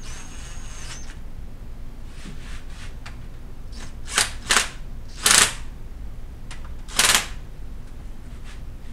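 Cordless drill motor spinning with a high whine for about a second, then four short, sharp bursts a few seconds later as the drill runs down and snugs the water-neck bolts on the engine.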